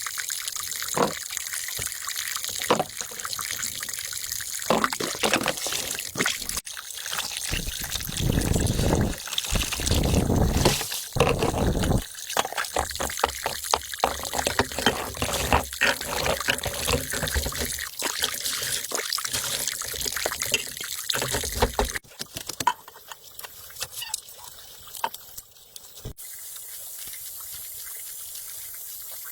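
Water trickling and splashing, with scattered clicks and knocks; a louder stretch of pouring water comes about a third of the way in, and it settles to a quieter, steady hiss in the last few seconds.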